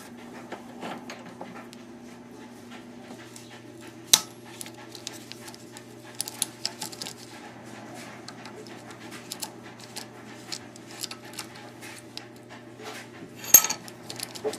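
Small metal grill parts (brass fittings and valve connections) being handled and worked by hand: scattered clicks and taps, a sharp knock about four seconds in and a louder clatter near the end, over a faint steady hum.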